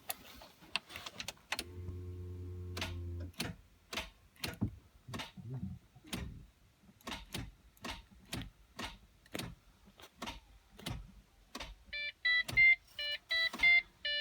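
Metal tool repeatedly striking the starter motor of a Holden VT Commodore, sharp knocks about two a second, to free a sticking starter. A short steady hum comes early, and a run of loud electronic beeps follows near the end.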